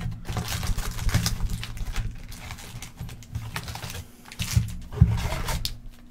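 Foil-wrapped trading card packs crinkling and rustling as hands pull them out of a cardboard box and set them down in stacks. There are a few louder knocks near the end.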